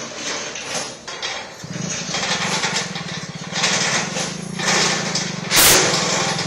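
A lorry's engine comes in about two seconds in and runs steadily at a low, even idle, with several noisy rushes over it, the loudest near the end.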